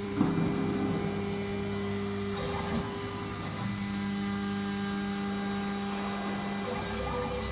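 Wood CNC router running with a steady electric motor hum made of several held tones. One of the tones drops out and comes back a couple of times as the machine shifts its motion. There is a short knock just after the start.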